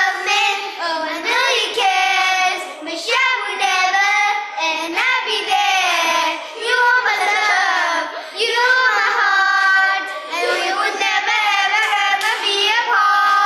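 Two young boys singing a song together.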